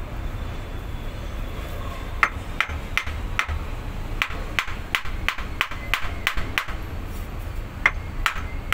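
Sharp metallic clicks, about two or three a second in runs starting about two seconds in, as the output yoke is worked onto the truck transmission's output shaft. A steady low hum runs underneath.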